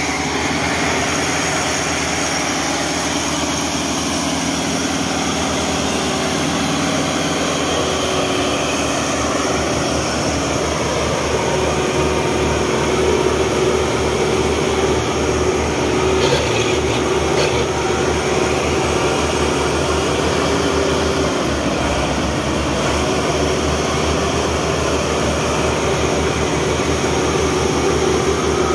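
Farm tractor diesel engines working hard under load, hauling a trolley piled with sugarcane through soft ploughed ground: a steady, loud engine noise, with the revs rising a little about twelve seconds in and holding there.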